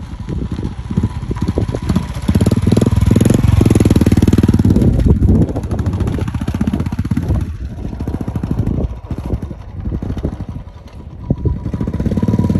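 Royal Enfield Classic single-cylinder motorcycle engine running as the bike rides around on loose gravel. It is loudest a couple of seconds in, fades about two-thirds of the way through as the bike moves off, and grows louder again near the end as it comes back.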